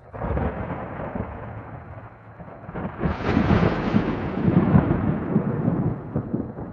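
AI-generated thunder sound effect from Meta's Audiobox: a rolling rumble that starts suddenly, grows louder and brighter about three seconds in, then tapers off.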